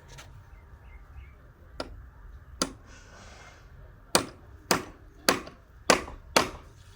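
A series of sharp knocks: two single ones, a short scraping noise, then five evenly spaced knocks about half a second apart.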